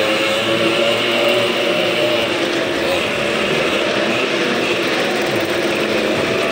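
Several motorcycles riding round the vertical wooden wall of a wall-of-death drum, their engines running hard in a dense overlapping drone, the pitch rising and falling as the bikes circle.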